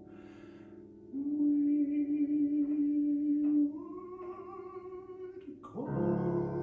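Operatic baritone singing with grand piano accompaniment: a quick breath, then a long held note and a rising line, with a fuller piano chord coming in near the end.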